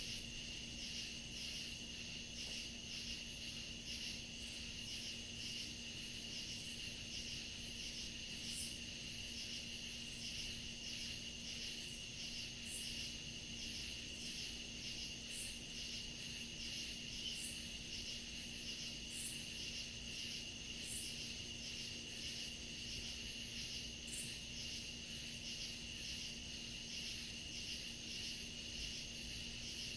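Night chorus of crickets in woods: a continuous high trill overlaid with rhythmic pulsing chirps, and a few scattered higher chirps. A faint low steady hum runs underneath.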